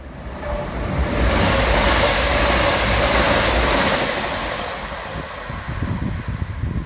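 Class 333 electric multiple unit passing close by at speed: a loud, even rush of wheels on rail that builds over the first second, holds for a few seconds, then fades as the train runs away down the line.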